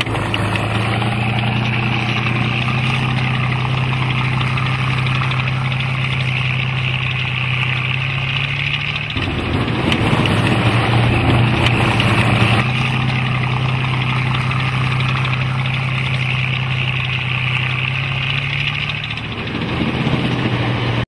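A heavy vehicle engine running steadily with a low, even hum. About nine seconds in it turns louder and rougher for about three seconds, then goes back to the steady running.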